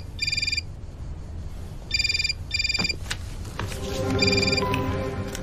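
Electronic telephone ringing with a double-ring pattern: pairs of short high trills, a pair about every two seconds, the last ring a single trill near the end.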